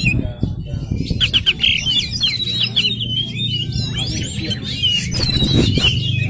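Oriental magpie-robin (kacer) in full song: a rapid run of varied whistles, chirps and sharp trills, pausing briefly about half a second in before starting up again, over a steady low hum.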